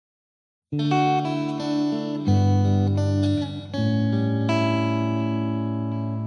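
Music with guitar: sustained plucked chords that change every second or so, starting a little under a second in after a moment of silence.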